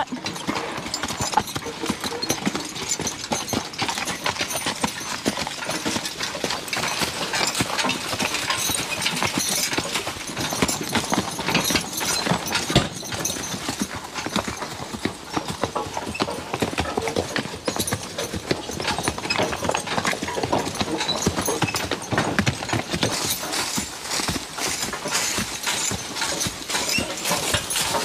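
Team of Belgian draft horses pulling a wagon, their hooves clip-clopping on a dirt track, with a steady clinking and rattling of harness and wagon.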